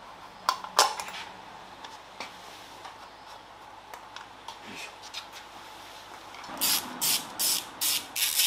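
Hand tools working on a carburettor air cleaner as it is taken off: a couple of sharp metal clicks, then near the end a run of quick rasping strokes, about three a second, like a ratchet wrench being worked.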